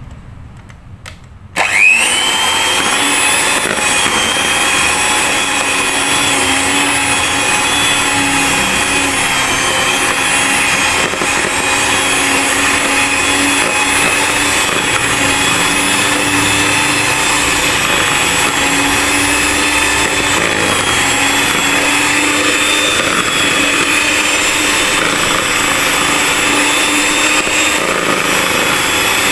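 Miyako electric hand mixer switched on about a second and a half in, whining up to speed and then running steadily at medium speed as its beaters cream margarine and sugar in the bowl.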